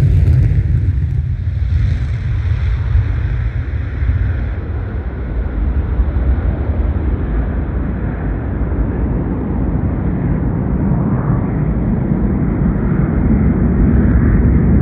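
Two-engined F/A-18 Hornet jet fighter rumbling deep and steadily. A higher, sharper roar fades out in the first second, and the rumble grows a little louder near the end.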